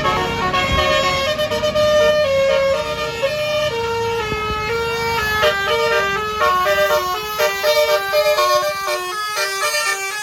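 Tour bus's basuri telolet horn playing a melody of stepped notes over the low running of the bus engine. The notes change quicker in the second half, and the engine rumble fades near the end.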